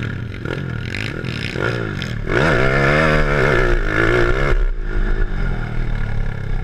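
Honda ATC70 three-wheeler with a swapped-in 140cc four-stroke engine accelerating hard, heard from on board, its revs rising and dropping several times. It is loudest from about two to four and a half seconds in.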